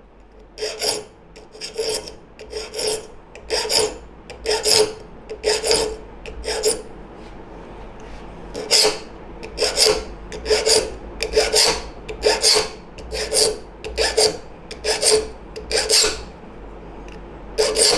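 Triangular saw file rasping across the steel teeth of a hand saw clamped in a vise, in a steady run of short strokes with a faint metallic ring, breaking off briefly about seven seconds in. It is the sound of the saw being sharpened tooth by tooth.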